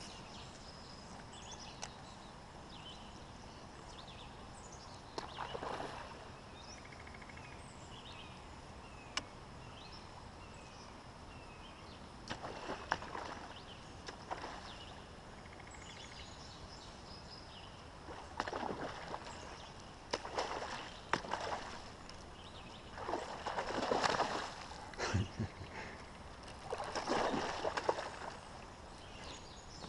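Water splashing at the surface in short irregular bursts, growing louder and more frequent in the second half: striped bass swirling and striking at a Zara Spook topwater lure. Faint bird chirps in the first half.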